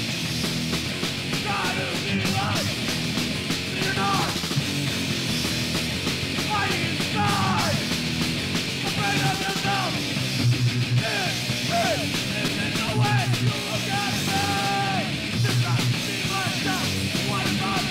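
Hardcore punk band playing a fast, loud song with distorted electric guitar and drums, from a 1990 demo recording. In the second half, heavy low hits land about every two and a half seconds.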